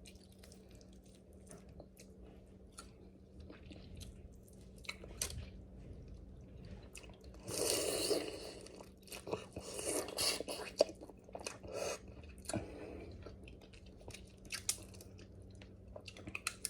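Person eating king crab: chewing and crunching, with scattered sharp clicks and a run of louder bursts about halfway through, over a faint steady low hum.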